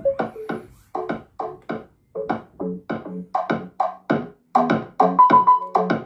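Electronic dance track with a fast, punchy beat, about four hits a second, played through a pair of loudspeakers driven by a 12-volt tractor amplifier board built on 2SC5200/2SA1943 power transistors, with bass and treble set to zero. It gets louder about halfway through as the volume is turned up.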